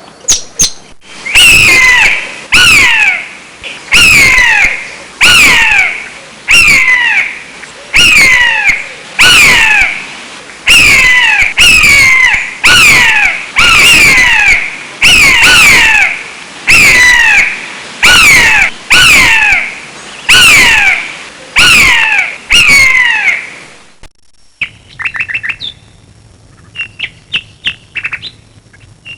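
A bird giving a loud, harsh squawk over and over, about every second and a bit, each call falling in pitch. About five seconds before the end it switches to a different, quieter bird making quick runs of short chirps.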